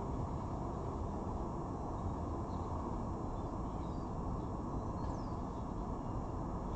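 Steady low outdoor rumble, with a few faint, short, high bird chirps about halfway through.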